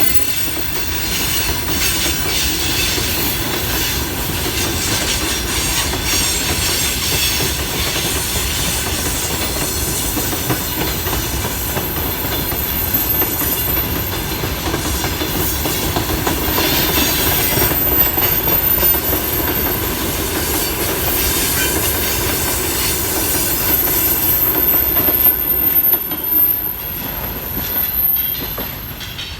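Freight train behind a VL80S electric locomotive rolling past: the wagons' wheels run over the rails with a steady rumble and clatter and a faint squeal off and on. The sound falls away over the last couple of seconds.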